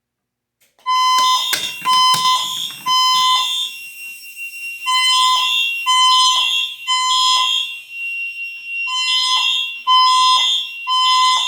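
Fire alarm system sounding the temporal-three evacuation tone: three loud beeps of about half a second each, then a pause, repeated about every four seconds. It starts about a second in, with a few sharp knocks over the first beeps. The pattern is the standard signal to evacuate the building.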